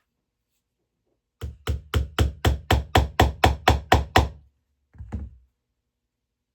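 A rapid, even series of about a dozen knocks on a wooden board, roughly four a second, followed a second later by two more.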